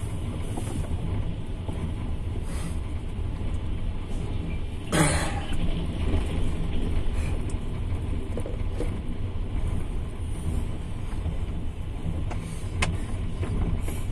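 Running noise of a moving double-decker passenger train heard from inside the carriage: a steady low rumble of the wheels on the rails. One brief, sharp, louder noise breaks in about five seconds in, and a short click comes near the end.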